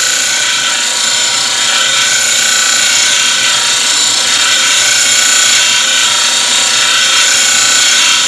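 A cobalt high-speed steel tool bit being ground on a homemade disc sander: a loud, steady high hiss of abrasive on steel over faint steady tones from the machine.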